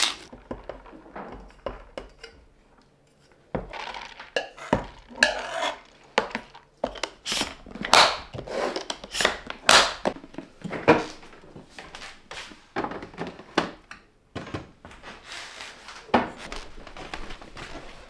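Kitchen clatter: dishes and cutlery clinking and knocking at irregular intervals, with short scraping and rustling sounds between the knocks.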